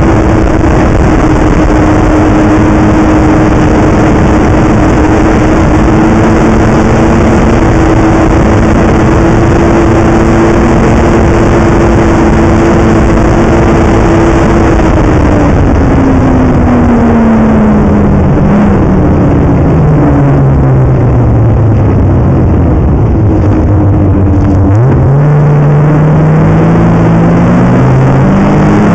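Snowmobile engine running at steady cruising speed over a constant rushing noise. About halfway through it eases off and its pitch falls for several seconds, then it picks up again with a rising pitch near the end.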